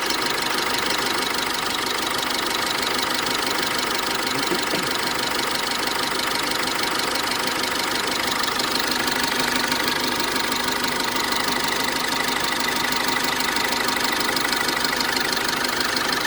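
Cummins diesel engine of a GAZelle van idling steadily, with the drive belt squeaking and whistling over it as a constant high tone. Wax rubbed on the belt has not cured the squeal.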